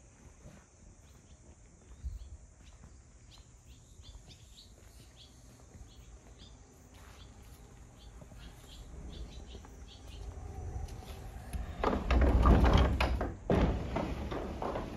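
Wooden sliding front door of a traditional Japanese house rattling along its track as it is slid open, loud for about a second and a half, a brief pause, then rattling again. Before that, faint bird chirps.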